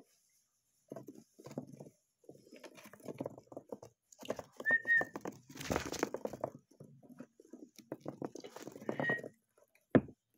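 Hamster's claws pattering and scrabbling on a hard plastic floor close by, in irregular bursts, with a sharp knock near the end.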